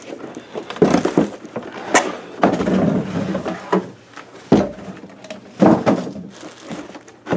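Cardboard boxes scraping and knocking together as an inner box is pulled out of a larger shipping box and set down: a run of short, irregular scrapes and thuds.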